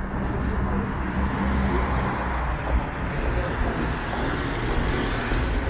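Street traffic: a motor vehicle going by over the steady low rumble of a city street.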